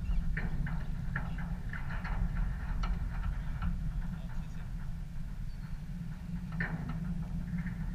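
Low, steady rumble of wind on the microphone, over faint, scattered short sounds from distant players on the pitch, with a brief distant call about seven seconds in.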